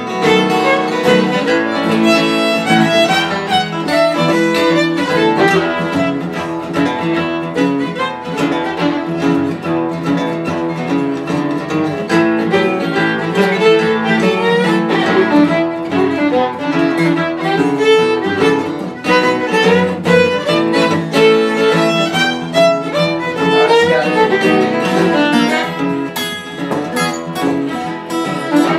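Fiddle and two acoustic guitars playing an instrumental passage of a country tune, the bowed fiddle standing out over the strummed and picked guitars.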